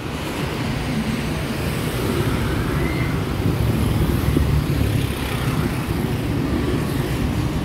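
Busy street traffic: a steady rumble of passing vehicles.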